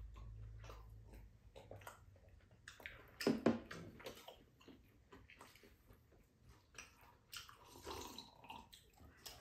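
Mouth sounds of eating and drinking at a table: chewing, sipping and slurping a drink from a mug, and small clicks. A couple of louder knocks come a little over three seconds in.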